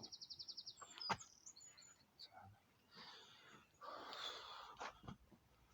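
Small birds chirping, with a quick high trill at the start, over a man's hard breathing from the burpees. Two sharp knocks sound, one about a second in and one near the end.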